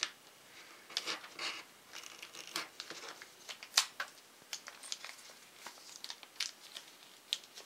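Crinkling of a small clear plastic parts bag being opened and handled, with scattered light clicks of small steel pins and shafts set on the bench.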